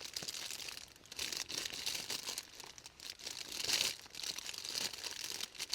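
Plastic food packaging crinkling and rustling as it is handled, in irregular bursts with a few louder crackles.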